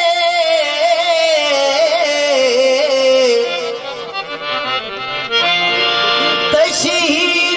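Live Punjabi folk music between sung lines: a held, wavering melody line that glides slowly downward, then a dense steady chord about five seconds in.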